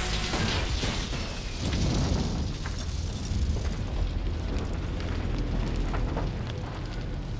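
Film sound effects of an explosion: a sudden blast at the start, then a long, deep rumble with scattered crackles of debris.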